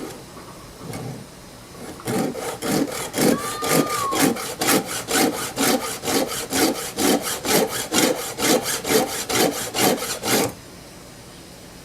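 A hand file rasping across a chainsaw chain cutter to sharpen it, in a steady run of strokes about three a second. It starts about two seconds in and stops shortly before the end.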